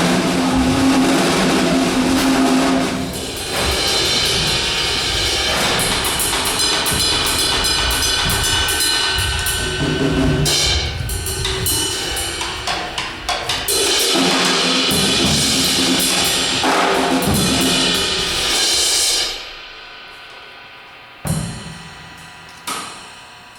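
Drum kit played live: dense, loud drumming with kick, snare and crashing cymbals. About 19 seconds in the playing stops abruptly, leaving a ringing cymbal wash, then two single sharp hits ring out and die away.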